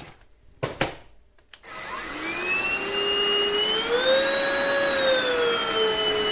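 Stanew cordless stick vacuum starting up: a few sharp clicks, then about a second and a half in its motor spins up with a rising whine. It runs steadily, its pitch climbing a little further and then easing back.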